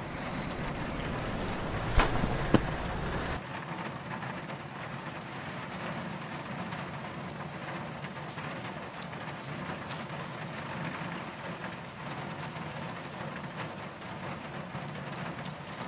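Steady background hiss with two sharp clicks about two seconds in, half a second apart; the low rumble under the hiss drops away a second later.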